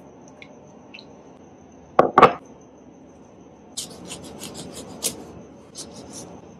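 Two sharp knocks about two seconds in, then a kitchen knife cutting through a lemon in a run of short scraping strokes, about four a second.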